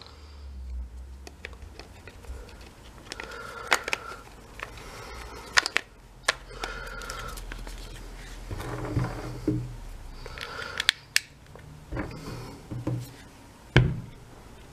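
Scattered clicks, knocks and scrapes of hard plastic tool parts being handled and fitted together as a Milwaukee impact driver's rear housing cap goes back on, with one sharper knock near the end.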